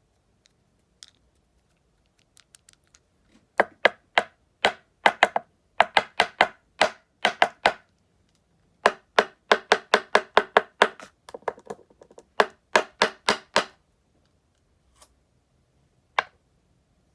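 Sharp clicks and taps from fly-tying tools at the tying bench. They come in quick runs of about two or three a second from about three and a half seconds in until about thirteen and a half, with a lone click near the end.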